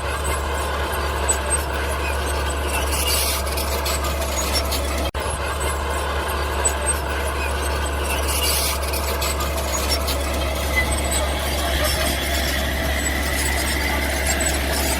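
Mini bulldozer running with a steady low engine hum and a high squealing from its tracks, briefly cut off about five seconds in.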